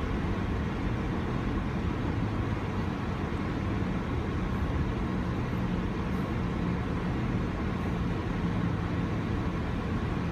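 A car driving, heard inside the cabin: a steady low rumble of engine and tyre noise with a faint even engine hum.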